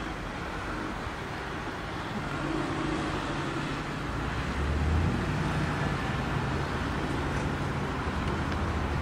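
Range Rover Sport SVR's 5.0-litre supercharged V8 running as the SUV pulls away and drives past, its low engine note building and loudest about five seconds in, over steady road traffic.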